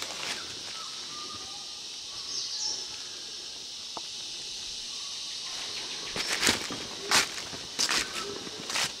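Footsteps crunching through dry leaf litter on the forest floor: a quiet stretch, then several uneven steps from about six seconds in. Under them runs a steady high hiss of forest background, with a few faint bird calls.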